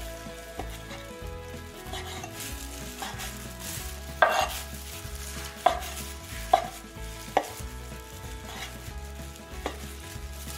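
Cleaver chopping cooked pork belly on a bamboo cutting board: separate knocks at uneven spacing. The knocks grow louder about four seconds in, the loudest first, with a few lighter ones after.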